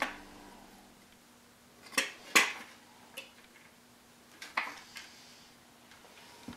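Laser-cut plywood parts knocking and clacking against each other and the wooden workbench as they are handled. A few separate knocks come about two seconds in and again around four and a half seconds, with quiet between.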